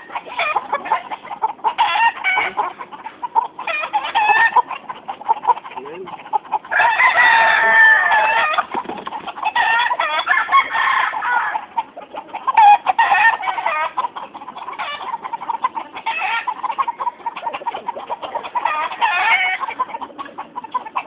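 A yard of tethered gamecock roosters clucking and crowing, many calls overlapping, loudest and busiest about seven seconds in.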